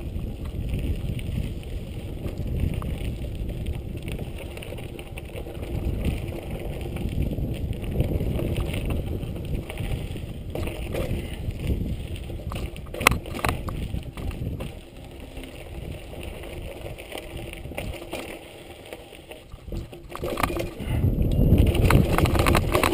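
Riding noise of a Giant Boulder 0 29er mountain bike on a dirt singletrack: wind rumbling on the handlebar camera's microphone, with tyres and frame rattling over the ground. A few sharp knocks come about 13 seconds in, and the rumble grows louder near the end.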